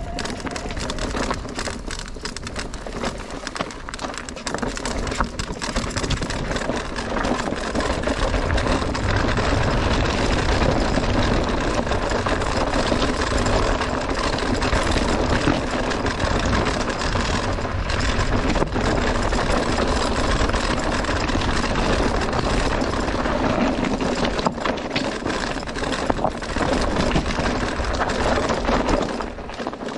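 Electric mountain bike (Merida eONE-Sixty) riding down rocky singletrack: a continuous clatter of tyres over loose stones and the bike rattling over the bumps, getting louder from about seven seconds in.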